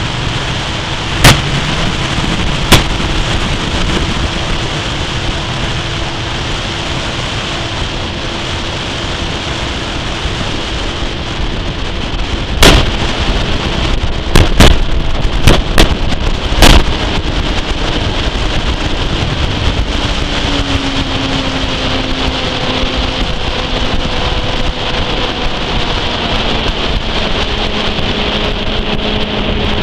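Motorboat's outboard engine running at speed under heavy wind rumble and rushing water, with several sharp thumps at irregular moments; in the second half the engine note slides steadily lower as it throttles back.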